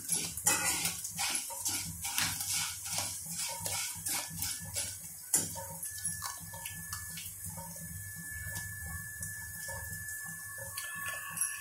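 Corn frying in hot oil in a kadai, sizzling with many crackles and small clicks, busiest in the first half. A faint steady high tone runs through the second half.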